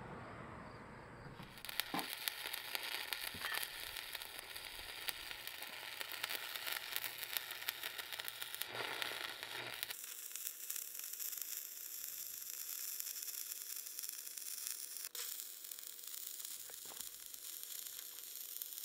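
Stick (arc) welding: the electrode's arc crackles and sizzles steadily as a bead is run on the steel of the truck's rear frame.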